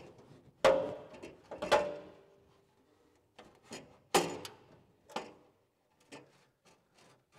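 Sheet-metal front-end panels (frame rails and radiator support) knocking and clanking against the ute's body as they are pushed and weaved into place by hand. Several sharp knocks with brief ringing, the loudest under a second in and just before two seconds, with smaller taps between.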